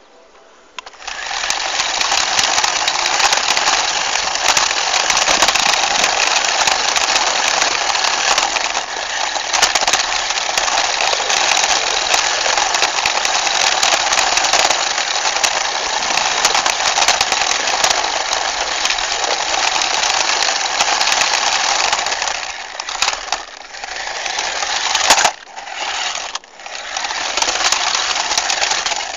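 Small RC car driving over tiles, its motor and drivetrain running with a dense rattle, heard from on board the car. It starts up about a second in, then near the end it stops and starts a few times, with one sharp knock.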